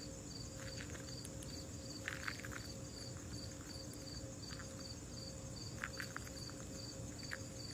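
Rhythmic high-pitched chirping, short even chirps about three a second, like a cricket's, over a steady faint high hiss with a few light clicks.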